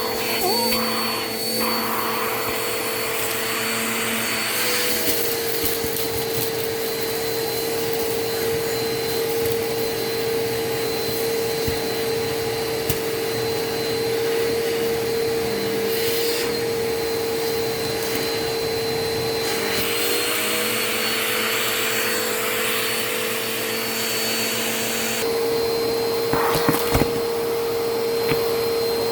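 A vacuum cleaner running steadily, its motor pitch stepping up and down several times as the suction is loaded and freed. Bursts of rushing, crackling noise come as crunchy debris is drawn up, with a few sharp ticks near the end.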